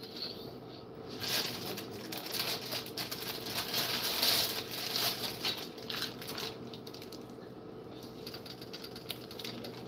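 Plastic bag crinkling and rustling, with small clicks and knocks as a package of ground beef is handled. A faint steady hum runs underneath.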